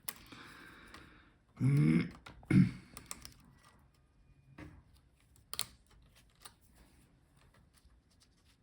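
Small, sharp plastic clicks and taps of ribbon-cable connector latches and cables being unclipped from a laptop motherboard. About two seconds in there is a short, louder vocal sound, a muttered word or throat clearing.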